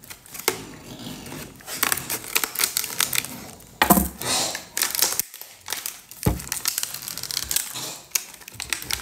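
Scissors cutting into a stiff clear plastic blister pack and the plastic crackling as it is bent and pulled open. A run of irregular snips and crackles, with two louder knocks, about four and about six seconds in.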